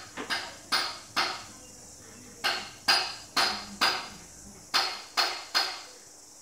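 Paintbrush strokes on a window frame: about ten short, sharp swishes in three quick runs of three or four, each fading fast.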